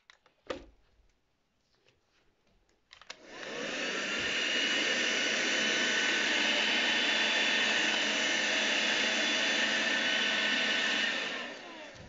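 Handheld vacuum cleaner switched on about three seconds in, its motor spinning up to a steady whine, then switched off near the end and winding down with falling pitch. A few light knocks come before it starts.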